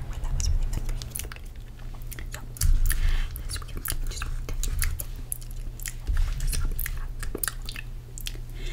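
Close-miked chewing with crisp, irregular crunching clicks, and a couple of low thumps about three and six seconds in.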